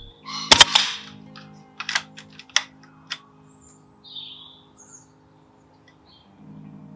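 A single shot from a .22 Hatsan Airmax PCP bullpup air rifle about half a second in, the loudest sound, followed by a few sharp metallic clicks as the side lever is cycled to chamber the next pellet. Birds chirp briefly in between.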